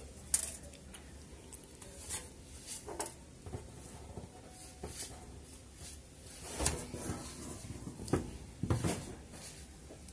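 Small clicks and light taps from fingers handling the small metal parts of a brushless drone motor (the bell, a washer and a tiny retaining C-clip) on a tabletop. A sharp click comes just after the start, then softer scattered clicks, with a cluster about two-thirds of the way through.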